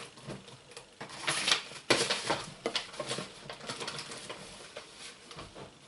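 Papers and a plastic cutting mat being handled on a desk: rustling with irregular light clicks and knocks, the sharpest about two seconds in.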